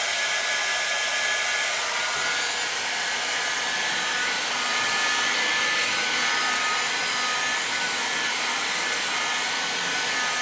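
Hot-air blower running steadily, a continuous rushing airflow with a faint whine, as it heats vinyl wrap film to shrink out wrinkles.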